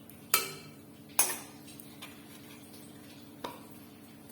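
Metal spoon knocking against a cooking pot: two sharp clinks about a second apart, then a lighter one, over a faint steady hum.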